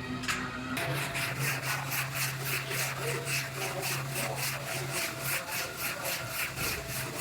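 Hand sanding in quick, even back-and-forth strokes, about four a second, starting about a second in, over a low steady hum.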